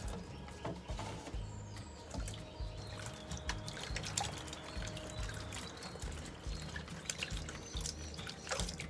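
Water splashing and sloshing as hands swish and rub okra pods in a basin of water, with many small splashes and drips, over background music.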